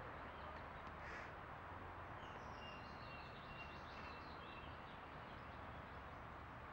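Faint outdoor ambience with a steady hiss, and birds calling: a short harsh call about a second in, then a run of thin, high chirps and whistles from about two to five seconds in.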